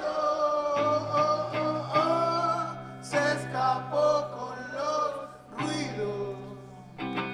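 A man singing, accompanied by his own electric guitar.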